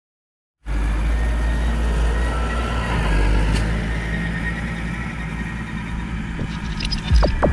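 Farm tractor engine running steadily as the tractor drives across a field, cutting in abruptly about half a second in, with a couple of sharp thumps near the end.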